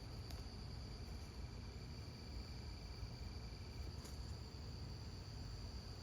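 Crickets trilling in a steady, high, even chorus over a low background rumble, with a couple of faint clicks.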